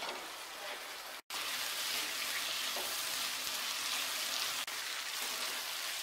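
Mixed vegetables sizzling in hot oil in a kadai while being stirred with a wooden spatula; a steady frying hiss that cuts out for an instant about a second in, then comes back a little louder.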